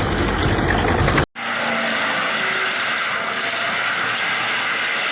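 Heavy wood-processing machinery running loud and deep, cut off about a second in, then a different machine running with a steady, higher-pitched grinding noise.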